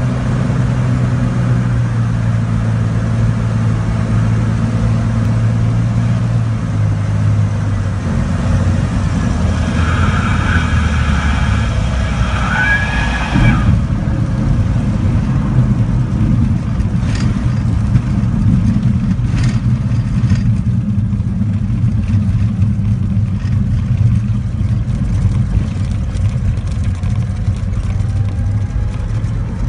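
Cessna 206's six-cylinder piston engine and propeller running through a landing, steady and loud. About ten seconds in, a higher steady tone sounds for about four seconds. It stops abruptly where the sound changes, and from there on it is rougher and noisier, with a couple of sharp knocks.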